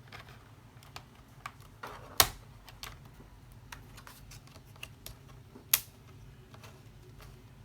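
Small plastic clicks and taps of hands working an old laptop's battery latch and casing, with two sharper snaps, one about two seconds in and one near six seconds: the battery will not come out.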